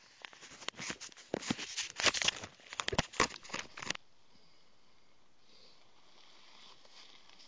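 Dry leaves and twigs rustling and crackling right at the microphone in quick, irregular crackles. About four seconds in it cuts off sharply to a faint, steady outdoor hiss.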